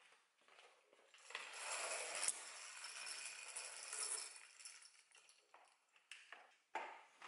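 A window blind being pulled open: a rustling, rattling run of about three seconds, then a few light clicks near the end.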